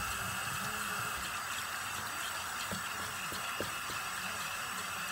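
Tap water running steadily, rinsing toothpaste and slime out of a blanket under the faucet, with a few faint knocks around the middle.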